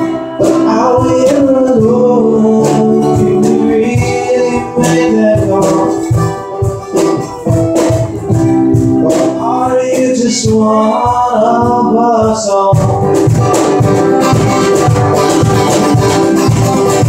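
Live acoustic song: a man singing over strummed acoustic guitar, with a shaker ticking in time. The singing stops about twelve seconds in and the instruments play on.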